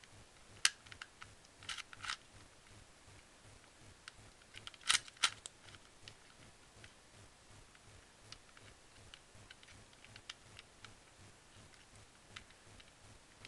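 Modded 3x3 'diamond cube' twisty puzzle being turned by hand: irregular plastic clicks and clacks as its layers turn. The loudest clacks come as a pair about five seconds in, with fainter ticks scattered after.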